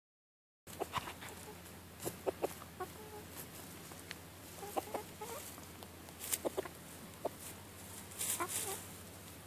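Silkie chickens clucking softly in short, scattered clucks while foraging, with a couple of brief rustling noises. The sound is cut out for the first moment.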